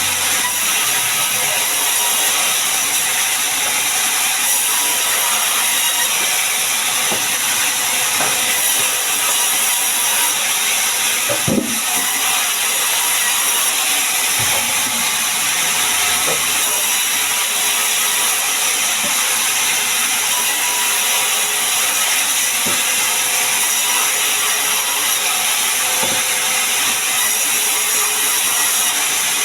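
Sawmill machinery running steadily while sengon logs are sawn into beams, a loud continuous mechanical noise with occasional knocks of wood and metal, one sharper knock a little before the middle.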